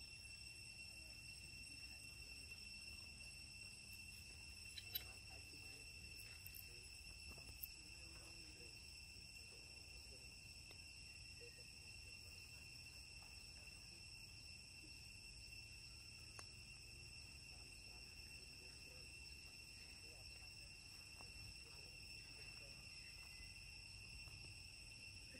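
Near silence with a faint, steady, high-pitched insect drone that holds one pitch throughout, and two faint clicks about five and eight seconds in.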